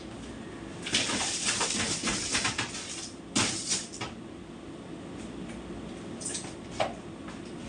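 Broom sweeping a tiled floor: a run of brisk, scratchy strokes for about two seconds, a louder stroke just after the middle, then a couple of light knocks near the end.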